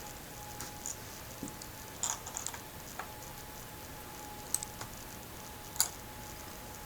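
Scattered light clicks and taps of hands working on a laptop screen assembly, fitting its parts and small screws, irregular and about a dozen in all, the loudest near the end.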